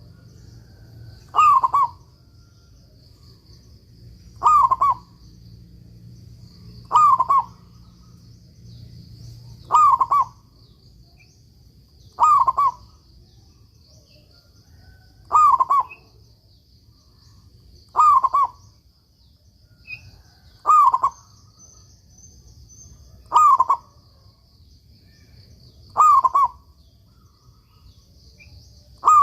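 Zebra dove (perkutut) cooing: a short, rolling coo repeated about every two and a half seconds, eleven times.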